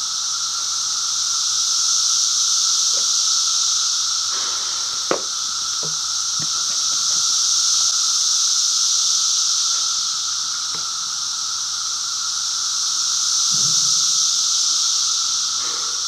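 Steady high-pitched insect chorus, a continuous hissing drone that swells and eases slowly, with a few light clicks and knocks from a cup being handled at a plastic water cooler's spigot.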